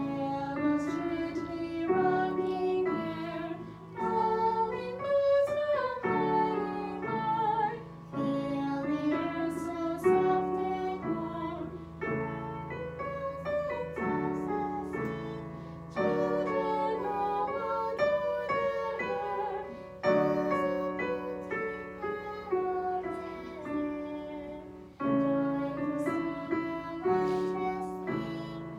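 Voices singing a simple song in unison with piano accompaniment, the piano striking a new chord every second or two.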